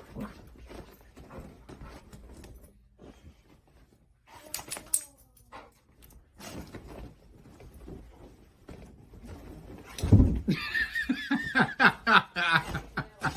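A dog scrambles about on a bed with the bedding rustling. About ten seconds in there is a heavy thud as the zoomie ends in a fall, and then a person laughs hard.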